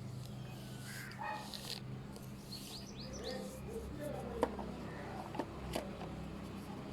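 Quiet background ambience with a steady low hum. About three seconds in, a short run of four quick rising bird chirps, followed by a few sharp clicks.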